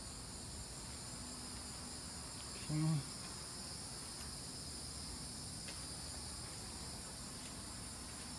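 Steady high-pitched chorus of insects, several even shrill tones running without a break.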